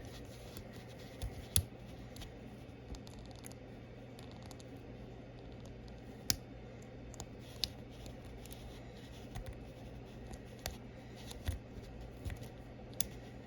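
Small metal clicks and scrapes of a short hook pick and tension wrench working the pin stack of a Master Lock 140 padlock, with scattered faint ticks and a few sharper clicks, over a faint steady hum.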